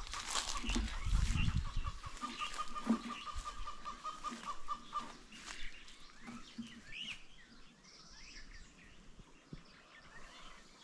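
Chickens clucking and other birds calling. A long even trill runs through the first five seconds, with scattered short calls after it, and low rumbling in the first two seconds.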